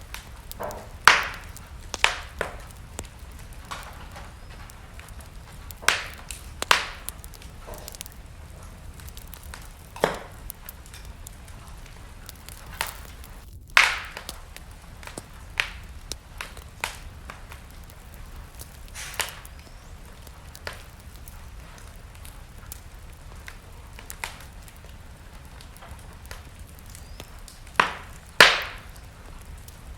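Wood fire burning in a fireplace, crackling with sharp, irregular pops every few seconds over a steady low rumble.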